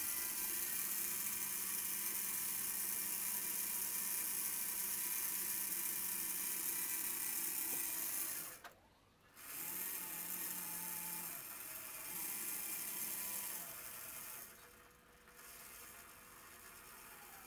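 Continuous-rotation hobby servo whirring as it winds a string and pulls a camera cart on skate-wheel bearings along metal conduit rails. It runs steadily, stops for about a second some eight and a half seconds in, then runs again in the opposite direction, softer over the last few seconds.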